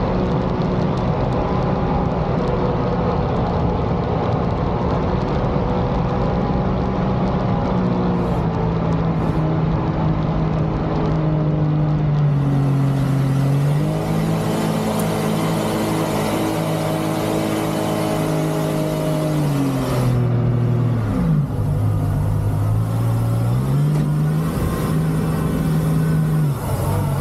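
Mini jet boat's supercharged Sea-Doo engine running under way, its note rising and falling several times as the throttle changes, with a sharp drop about two-thirds through before it picks up again. A rushing hiss joins about halfway.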